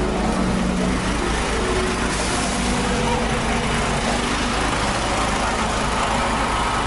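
An engine running steadily with a constant low drone, under the chatter of a crowd walking by.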